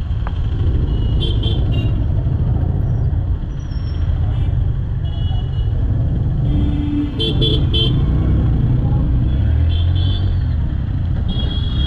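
Honda X-Blade motorcycle's single-cylinder engine running at low speed in stop-and-go street traffic, with road and wind rumble. Short vehicle horn beeps sound several times, including a cluster of quick toots about seven seconds in.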